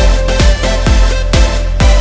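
Electronic dance music with a steady kick drum a little over two beats a second over a deep bass line.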